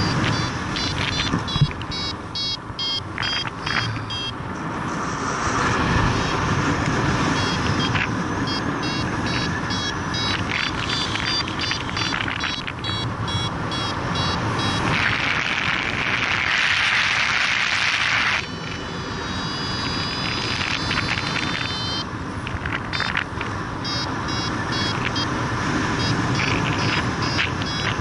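Paragliding altimeter-variometer beeping in quick repeated trains of short high tones, which signal the glider climbing, over steady wind rushing across the microphone. About halfway through, a stronger, hissier gust of wind cuts off suddenly, and the beeps turn to a few seconds of longer held tones.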